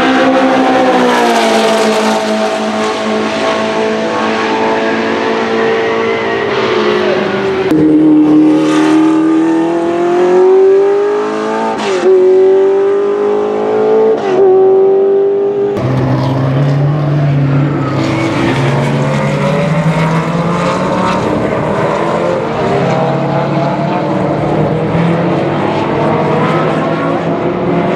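Porsche 908/3's 3.0-litre flat-eight racing engine running hard on track. The note falls away at first; then it climbs with two brief dips at upshifts; then a lower note rises and falls as the car accelerates away through the gears.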